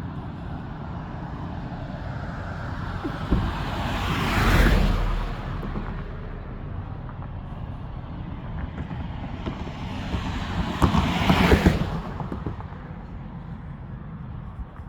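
Car engines idling, with two vehicles driving past close by: one swelling up and fading about four seconds in, the other around eleven seconds in.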